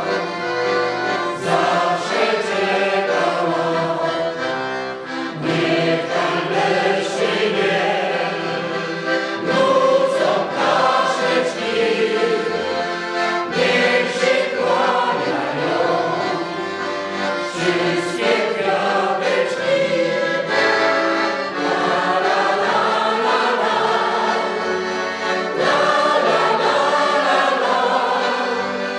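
Mixed choir singing a Polish folk love song in several parts, with accordion accompaniment.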